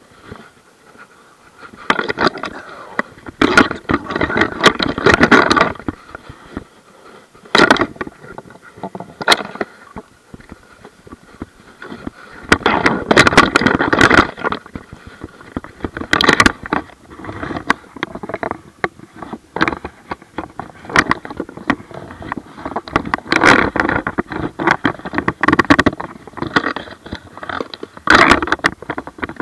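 Irregular bursts of scraping, rustling and knocking close to the microphone, with sharp clicks in between: handling noise of gear being moved about in a kayak.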